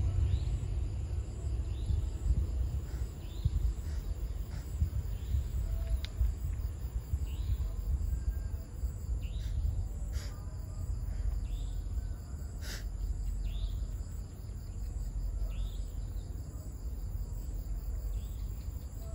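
Insects chirping at intervals of about a second over a steady, fluctuating low rumble, with a few sharp clicks around the middle.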